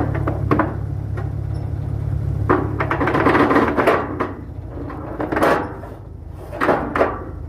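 A low engine hum that fades about halfway through, under irregular knocks and clattering of gear being handled.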